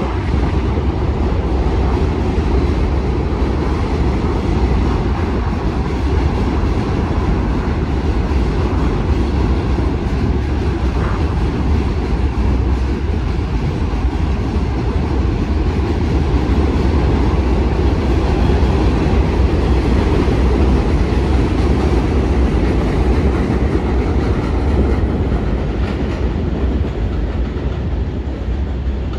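New York City subway L train running on the track: a loud, steady, deep running noise that eases off slightly near the end.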